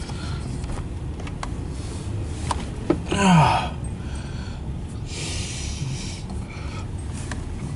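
Double-stack intermodal freight train rolling past, a steady low rumble heard from inside a car, with a few faint clicks. About three seconds in comes a short breathy voice sound that falls in pitch.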